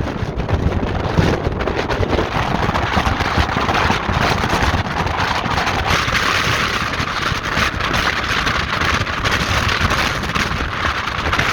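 Strong gusting wind blasting the microphone: a loud, continuous buffeting rumble with rapid flutter.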